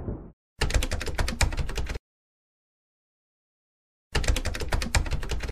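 Typing sound effect: two bursts of rapid keyboard clicks, each about a second and a half long, with dead silence between them. The tail of a rumbling thunder effect fades out at the very start.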